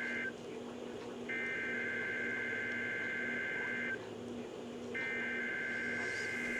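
NOAA Weather Radio SAME digital header heard on a weather radio receiver: two-pitch data tones sent in bursts about two and a half seconds long with a second's pause between, marking the start of the required weekly test. The end of one burst is followed by two full bursts.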